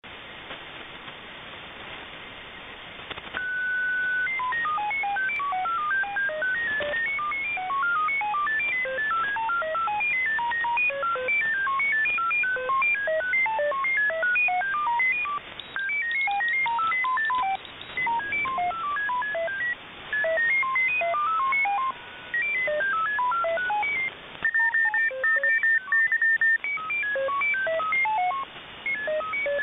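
Shortwave receiver audio of a frequency-hopping digital signal in the 30 m amateur band: short beeps jump at random between higher and lower pitches, several a second, over steady static hiss. The uploader takes it for an MFSK mode. A steady carrier tone sounds briefly near the start and again, broken, near the end.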